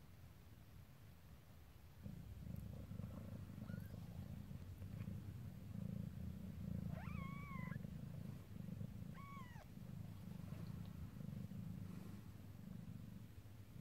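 A mother cat in labour purring close up, a steady low rumble that starts about two seconds in. Two short high mews break in over it, several seconds apart.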